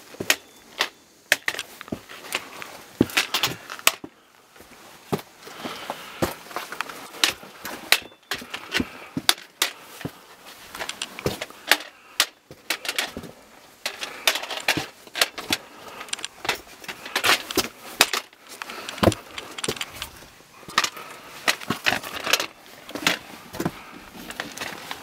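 A hiker scrambling over rock with a handheld camera: footsteps and shoe scuffs on stone, with many irregular sharp clicks and knocks from handling and carried gear.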